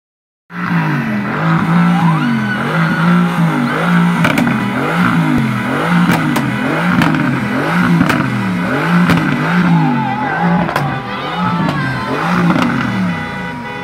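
Mercedes-AMG GT's twin-turbo V8 revved repeatedly, its pitch climbing and falling about once a second, with scattered sharp cracks.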